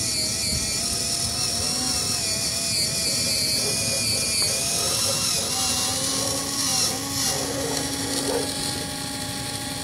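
Small electric motor and gear train of an RGT 186100 RC rock crawler whining as it crawls over rocks, the pitch wavering up and down with the throttle.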